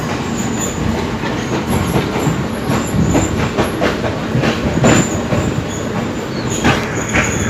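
Passenger train rolling in on arrival: wheels clattering over rail joints with frequent knocks, and short high squeals from the wheels.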